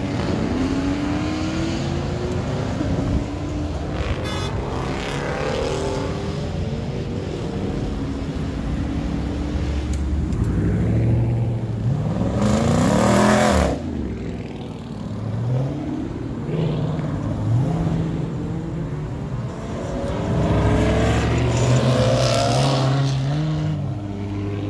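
Cars accelerating hard through an intersection one after another, engines revving up and dropping back as they shift. About halfway through one car passes close by, loudest of all, its pitch falling as it goes past.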